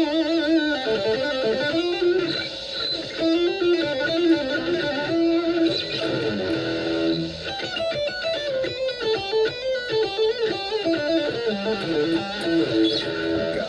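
Electric guitar played through a high-gain amp tone: a single-note riff of quick notes and some held, wavering ones.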